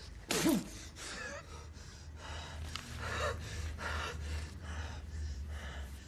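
A man breathing hard in quick, rasping breaths, about two a second. The loudest moment is a short voiced gasp just after the start. A low steady hum runs underneath.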